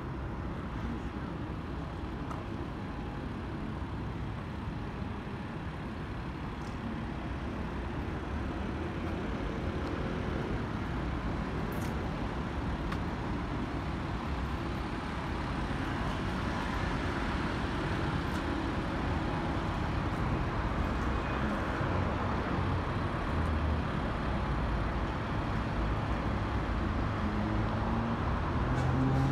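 City street traffic: a steady wash of passing cars and buses that grows gradually louder. Near the end, one vehicle's engine rises in pitch as it pulls away.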